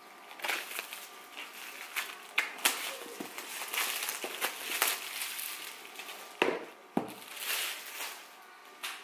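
Clear plastic shrink wrap crinkling and crackling as it is peeled and pulled off a laptop box by hand, with two dull knocks near the end.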